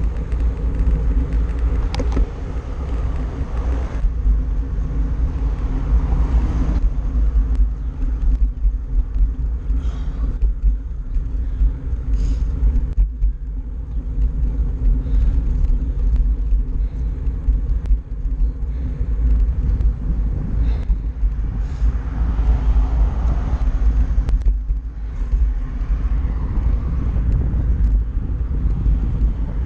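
Wind rumbling and buffeting across the microphone of a handlebar-mounted camera while riding along a road, with road noise underneath. A broader hiss swells for a few seconds after the middle, like a passing vehicle.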